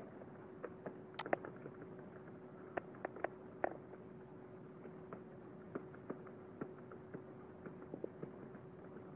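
Scattered, irregular clicks of a computer keyboard and mouse as code is edited, over a faint steady hum.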